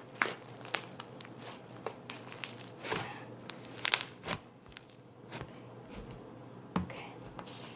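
Stiff butter slime being kneaded and stretched by hand with lotion worked in, giving irregular sticky clicks and crackles.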